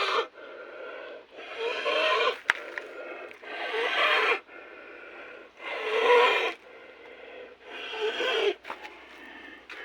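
Cattle breathing with loud snoring noises through the nose: a noisy breath about every two seconds, with quieter breathing between. This is the snoring of snoring disease (nasal schistosomiasis), in which growths narrow the nasal passages.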